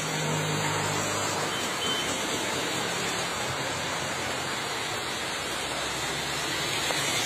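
Steady heavy rain falling on a wet road, an even hiss with no break.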